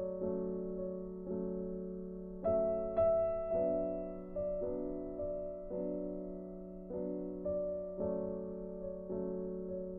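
Soft background piano music: gentle notes and chords struck roughly once a second, each ringing and fading before the next.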